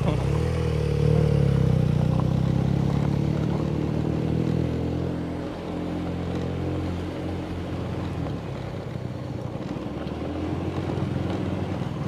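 Motorcycle engines running at road speed on a gravel road, heard from the rider's seat. The sound is louder over the first few seconds, eases off about halfway and picks up again near the end.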